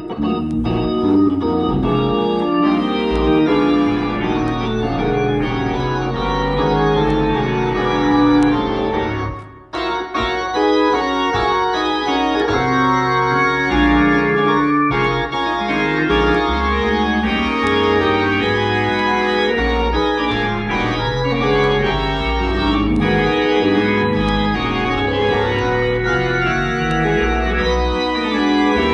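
Organ played on an electronic keyboard: sustained chords over moving bass notes, with a short break about ten seconds in.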